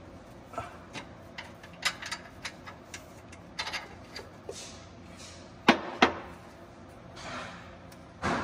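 Alternator on a bus engine being worked off its mounting bracket by hand: scattered metallic clicks, scrapes and knocks, with two sharp knocks a little over halfway through and another near the end.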